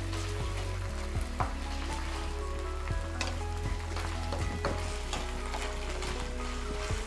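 Food frying in fat in a frying pan while it is stirred with a spatula: a steady sizzle with scattered light clicks and scrapes of the spatula against the pan, over a steady low hum.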